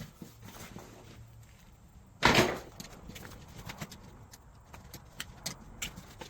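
Handling noises from unpacking a portable air compressor's carrying case: one loud, brief knock about two seconds in, then scattered light clicks and taps.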